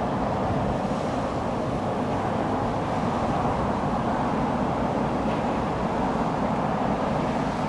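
Steady, even background noise, strongest in the low and middle range, with no distinct events.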